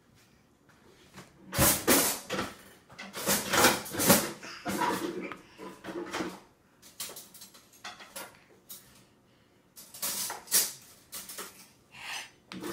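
A child's spoon clattering and scraping in a metal-lined suction bowl, in quick irregular knocks, in two bouts with a quieter gap between them.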